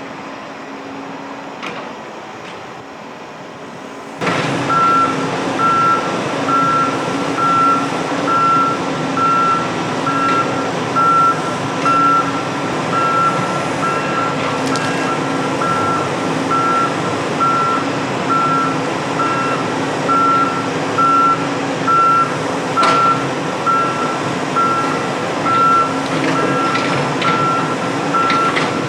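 Construction machine's reversing alarm beeping about once a second over a running engine, starting abruptly about four seconds in; before that, only a quieter steady engine hum.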